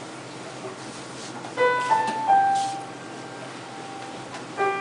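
Piano playing a short falling phrase of three held notes about a second and a half in, with another phrase beginning near the end, over a steady hiss.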